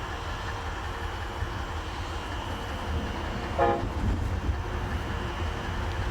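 Train rumbling steadily as Amtrak's northbound Silver Meteor approaches on the main line, with one short, distant-sounding horn toot a little past halfway.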